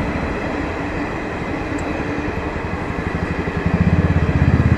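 Passenger coaches of a train hauled by a WAP-5 electric locomotive rolling past on the track with a steady rumble. About three and a half seconds in, a motorcycle engine comes in close and louder, with an even, fast pulsing beat.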